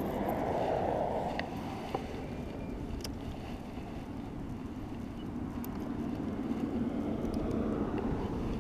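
Wind buffeting the camera microphone: a steady low rumble and rush, with a few faint clicks.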